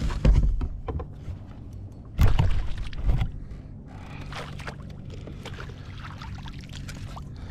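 Water splashing and knocks against a kayak as a hooked largemouth bass is brought alongside and landed, with a few loud bursts in the first three seconds, then quieter handling clicks.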